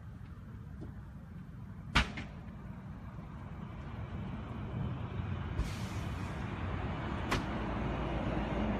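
Van on fire, the blaze making a low rumbling noise that grows louder over the second half. Two sharp bangs ring out, the louder about two seconds in and another near the end, with a brief hiss between them.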